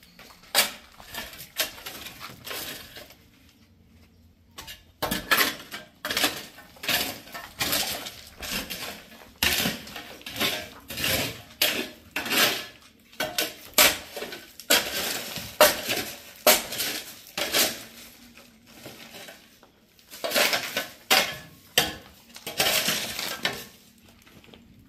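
Repeated metallic scraping and clinking strokes, about one or two a second, from a metal tool working on hard, gritty material. The strokes pause about three seconds in and again near the end.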